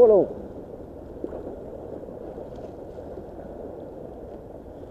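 Sea waves washing against a rocky shore, a steady rushing noise. A short falling cry sounds right at the start.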